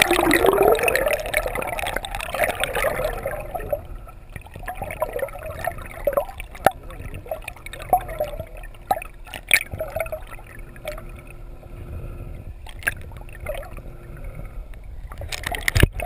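Water heard through an underwater camera: a loud rush of water and bubbles for the first three seconds or so, then muffled water movement with scattered sharp clicks and knocks and a faint steady low hum.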